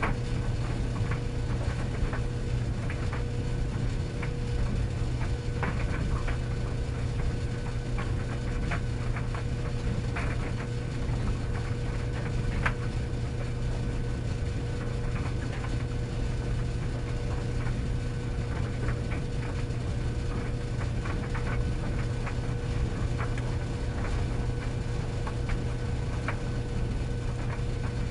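Tumble dryer running: a steady low motor hum with a faint higher tone above it, and irregular light clicks and taps as the drum turns.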